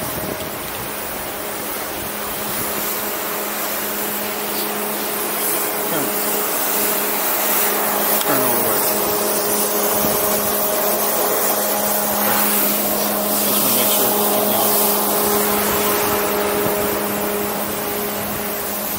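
Wind rushing over the camera microphone on a moving ski chairlift: a loud, steady hiss that swells a little midway, with a steady low hum underneath.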